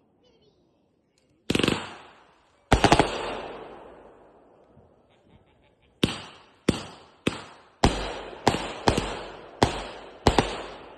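Fireworks exploding: a sharp bang about one and a half seconds in, a quick cluster of bangs near three seconds, then a rapid run of about nine bangs roughly every half second in the second half, each fading away in an echo.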